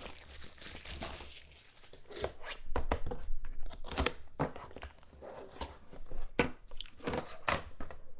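Crinkling of plastic shrink wrap and irregular light clacks of hard plastic card cases being handled on a tabletop.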